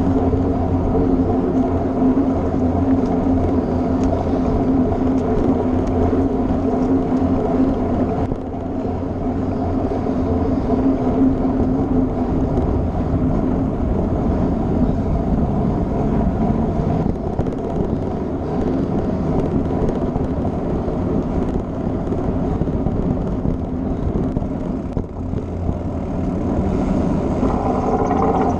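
Mountain bike rolling across a wooden boardwalk: a steady, loud rumble of the tyres over the planks.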